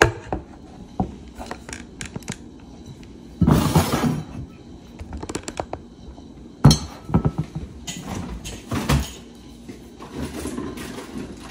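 Kitchen handling noises: scattered knocks and clatter as a glass baking dish and other items are moved about on a countertop, with a rustling burst about three and a half seconds in and a sharp knock about seven seconds in.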